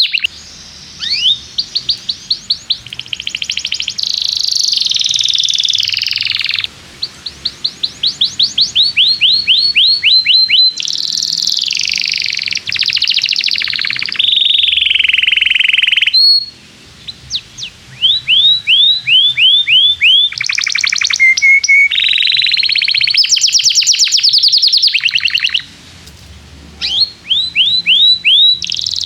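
Domestic canary singing a long, vigorous song of rapid trills. Each phrase is a fast run of repeated chirps, some sweeping up and some down, with brief breaks between phrases.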